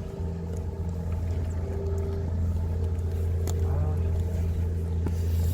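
An engine running steadily, a low even drone, with a brief voice faintly over it about three and a half seconds in.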